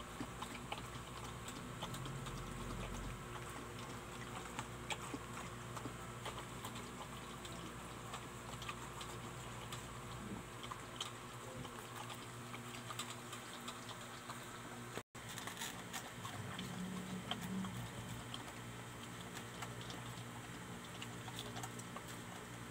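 A husky lapping milky food from a bowl: a steady run of small wet licking clicks.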